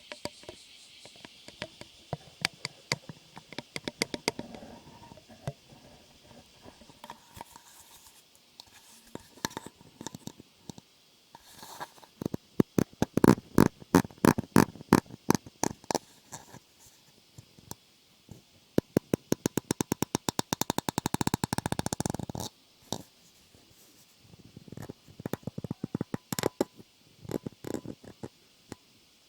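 Close-miked ASMR trigger sounds: clusters of sharp clicks and taps, densest in the middle. Shortly after the middle comes a fast, evenly spaced run of clicks lasting about three seconds.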